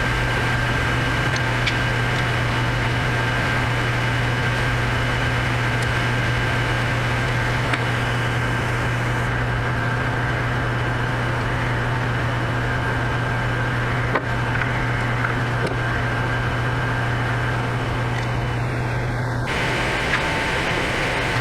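Steady mechanical hum like a running fan or motor, with a low drone and a faint steady whine above it. A single light click comes about two-thirds of the way through.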